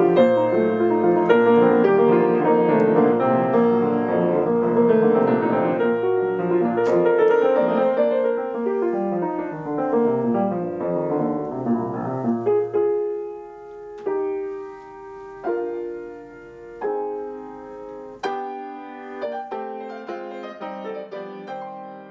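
Grand piano played solo in a classical style: dense, loud runs of notes sweeping downward for about the first twelve seconds, then thinning to slower, quieter chords about one every second and a half as the piece winds down.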